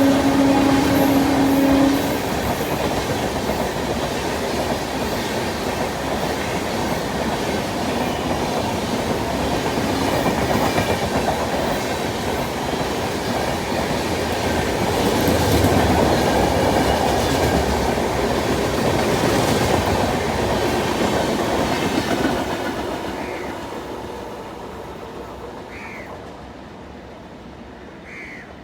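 Yesvantpur–Howrah Duronto Express, hauled by a WAP7 electric locomotive, passing at speed: its horn stops about two seconds in, then a steady rush and clatter of wheels on rail that swells in the middle and fades away over the last several seconds as the train recedes.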